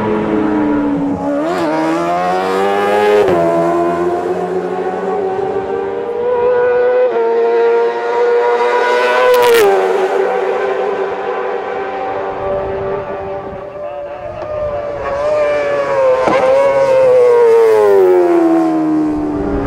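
Racing sidecar outfit engine running at very high revs as it passes at speed. The note climbs, drops sharply at each gear change (one marked drop about halfway through), and falls away in a long slide in pitch near the end.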